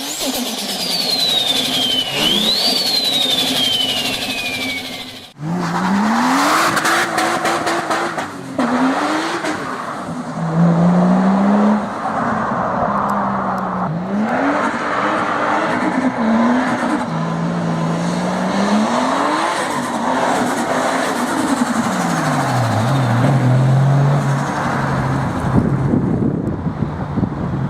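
Turbocharged car: a high turbo whistle falls in pitch for about five seconds, jumping up once partway. Then the engine runs hard through several gears, its note climbing and dropping back at each shift.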